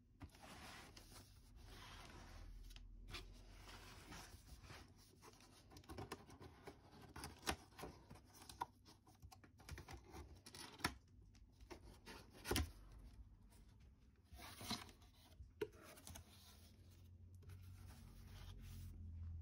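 Cardboard boxes being handled and opened: flaps scraping and rustling, with scattered light taps and knocks, one louder knock a little past the middle.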